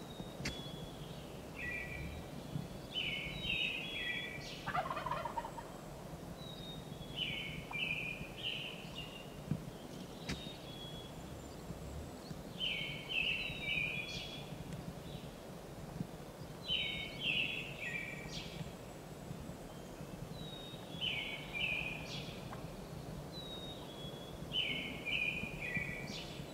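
A wild turkey gobbles once about five seconds in, a rapid rattling call falling in pitch. Around it, a songbird repeats the same short, high song of falling notes about every four to five seconds.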